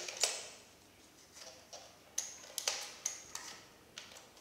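A handful of short, sharp clicks and snaps, irregularly spaced about half a second apart, from hands working a plastic Nerf Strongarm blaster and a pair of scissors.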